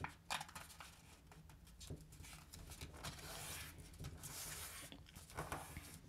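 A sheet of A4 paper being folded by hand: faint rustles and light taps, with a longer soft sliding hiss around the middle.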